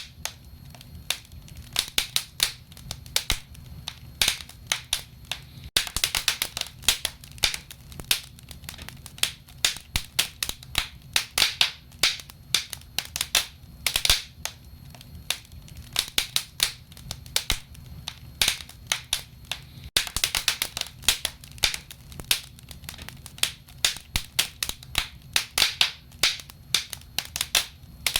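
Wood fire burning in a fireplace, crackling with irregular sharp pops, sometimes in quick flurries, over a low steady rumble of the flames.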